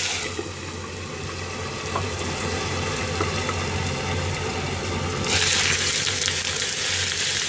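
A frying pan of fried egg, salmon and leftover grilled meat sizzling with a splash of salted water added, steam-frying. The sizzle goes muffled as a glass lid covers the pan, then turns bright and loud again when the lid is lifted about five seconds in. A low steady hum runs underneath.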